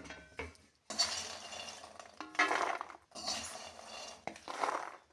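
A metal spatula stirring and scraping makhana (fox nuts) around a kadhai as they roast in ghee, with clinks of metal on metal. The sound comes in short stretches that cut off abruptly.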